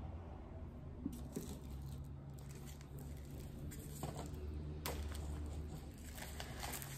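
Faint rustling and a few soft clicks as hands handle a book and a small strip of paper or wrapping, over a low steady hum.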